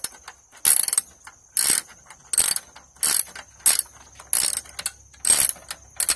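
Hand socket ratchet clicking in a steady rhythm of strokes, about one every 0.7 seconds, as it tightens the bolts holding the recoil starter (pull-cord) housing onto a Honda 5.5 HP engine.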